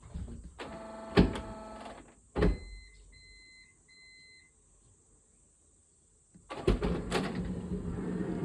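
Honda Step WGN RP4 rear power sliding door operating. A buzzing whine with a sharp click lasts about a second and a half, then comes a knock and three short warning beeps. After a pause there are clunks and the door motor runs steadily. The owner flags an abnormal noise that occurs only at the start of the door's operation.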